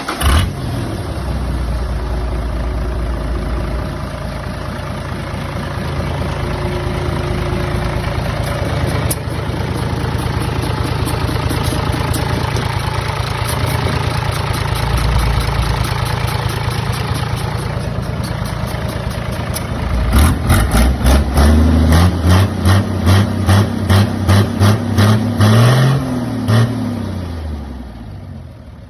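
Isuzu 6HH1 inline-six diesel engine running steadily, then revved in a quick run of short blips, about two a second, before the speed falls away near the end.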